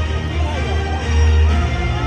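Loud show music with deep, sustained bass notes.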